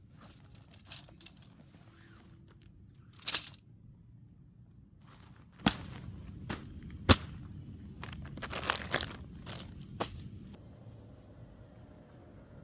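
Scattered sharp knocks and clicks, a handful spread over several seconds with a small cluster near the end, the loudest about seven seconds in, over faint background noise.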